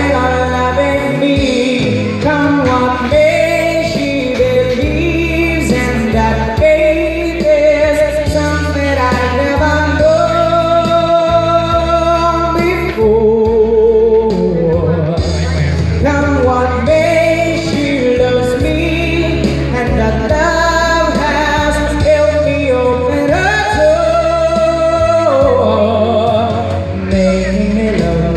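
A young man singing into a handheld microphone over instrumental accompaniment, holding long notes with a wavering vibrato; the voice pauses briefly about halfway through.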